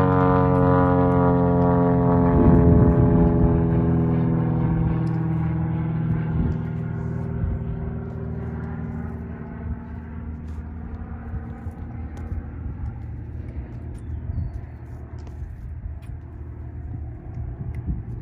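Engine drone of an airplane passing overhead: a steady pitched hum with many overtones that slowly sinks in pitch and fades away over about ten seconds. A brief rush of noise about three seconds in is the loudest moment.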